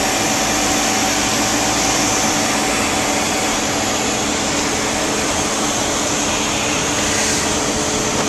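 Steady, loud rush of jet aircraft turbine noise with several constant whining tones, unchanging throughout.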